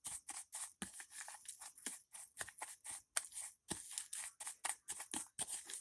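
Dry spice rub being stirred and broken up in a small container: a rapid series of short scraping clicks, about five a second, as the clumped salt, sugar and spices are worked loose.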